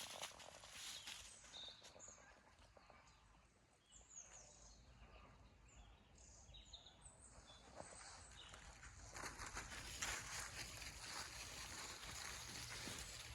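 Faint, brief chirps of small wild birds, scattered through the first two-thirds; about nine seconds in, a louder rustling with small crackles sets in, as of movement through undergrowth.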